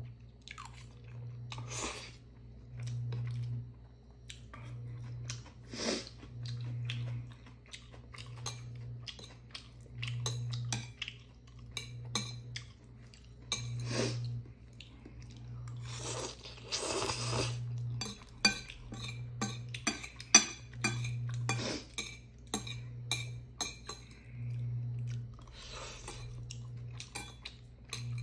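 A person eating Chapagetti noodles: chewing and slurping, with chopsticks and a spoon clicking against a ceramic bowl, the clicks busiest about two-thirds of the way in. Underneath, a low hum swells and fades about every two seconds.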